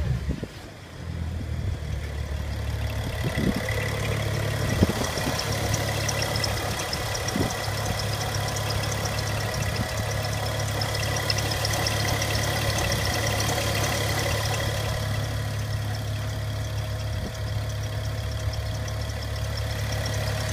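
BMW N55 turbocharged inline-six idling steadily, with a ticking noise coming from the engine bay.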